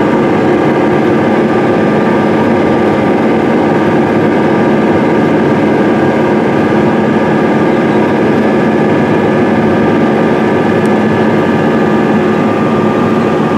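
Case IH Quadtrac 580 tractor's diesel engine running steadily under load while pulling a 16-row strip-till bar, with a steady hum made of several tones.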